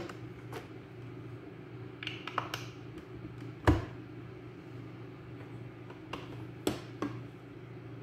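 Plastic clicks and knocks from a capsule coffee machine being handled, with one sharp loud click about four seconds in as its lever is closed. A few lighter knocks follow as a glass cup is set under the spout.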